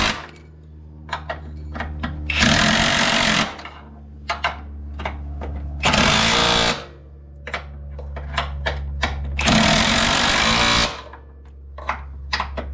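Ratchet and socket running mount bolts down: three loud bursts of about a second each, with scattered single clicks in between.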